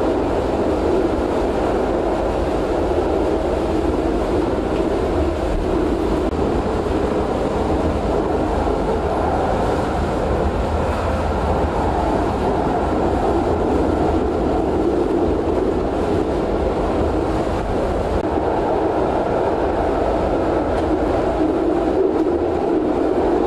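Interurban electric tram running at steady speed, heard from inside the driver's cab: a constant rumble of wheels on rail.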